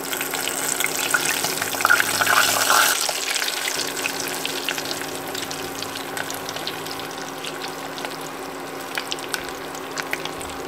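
Hot oil sizzling and crackling as breaded chicken deep-fries in a small stainless-steel pot. It is loudest for the first three seconds while chopsticks lift a piece out, then settles to a steadier crackle with scattered pops over a steady low hum.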